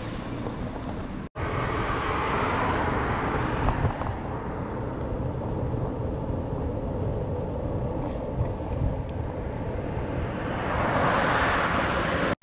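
Wind rushing over the camera microphone while cycling alongside a road, with passing traffic; a car swells past near the end. The sound cuts out for an instant about a second in.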